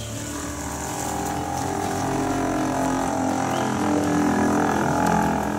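Polaris Ranger utility vehicle driving past close by, its running sound growing steadily louder as it nears and peaking about five seconds in.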